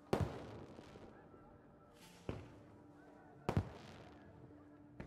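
Fireworks bursting in the night sky: four sharp bangs a second or more apart, each trailing off in a crackling hiss. The first and third bangs are the loudest.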